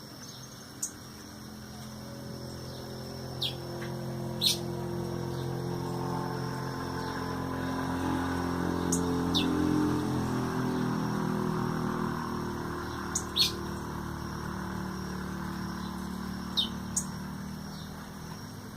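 Short, sharp high bird chirps, single falling notes every second or few, about eight in all. Under them a vehicle engine hum grows louder towards the middle and then fades, as a vehicle passes.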